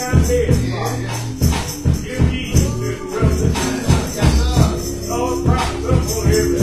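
Live church gospel music: sustained keyboard chords under a steady beat of about two strikes a second, with a jingling tambourine and singing voices.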